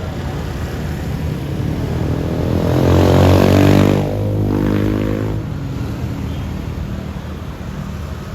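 A large bus passing close by on the road, its engine swelling to the loudest point about three to four seconds in, then dropping away as it goes past and fading over the next second or two.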